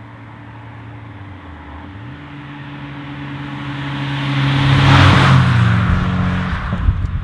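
A 1993 VW Golf 3 GTI track car approaching and driving past. Its engine note steps up about two seconds in and grows louder to a peak of engine and road noise about five seconds in, then drops in pitch as the car goes by.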